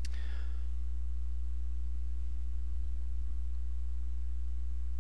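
Steady low electrical hum, a single unchanging drone, with one brief click at the very start.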